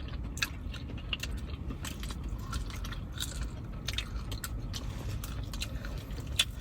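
Close-up chewing and biting on fried chicken wings, with small wet clicks and crunches scattered throughout, over a low steady hum.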